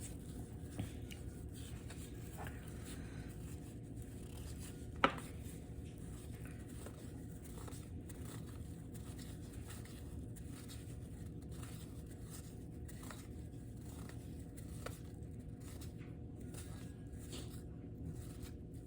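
Faint handling of baseball cards: small scattered clicks and slides as cards are flipped through, with one sharper tap about five seconds in, over a steady low hum.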